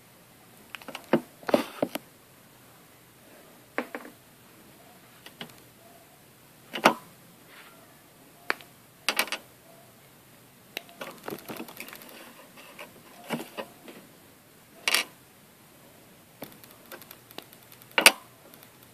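Irregular small clicks, taps and light rustles of hands handling a plastic Lego minifigure torso and a paintbrush over paper, with a few sharper taps among them.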